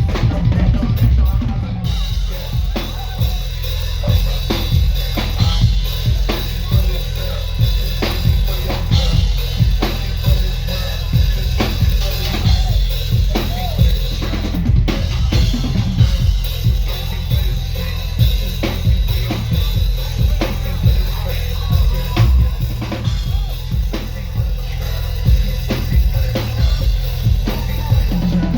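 Drum kit played live and loud: a dense, fast run of bass drum and snare hits.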